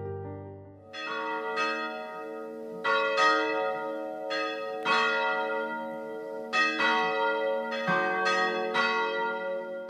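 Bells ringing in a slow, uneven series of strikes, each note ringing on and overlapping the next, beginning about a second in.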